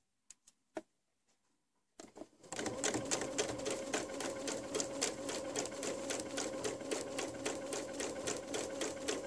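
A few light clicks, then about two and a half seconds in an electric domestic sewing machine starts stitching and runs at a steady speed with a rapid, even needle rhythm. It is chain-piecing patchwork pieces, feeding one after another without cutting the thread.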